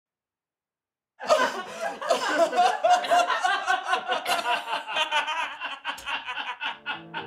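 Silence, then hearty laughter breaking out about a second in and going on with rapid, wavering peals. Music with held notes comes in near the end.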